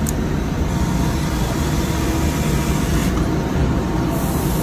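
Steady low rumble with hiss: constant background noise at an even level.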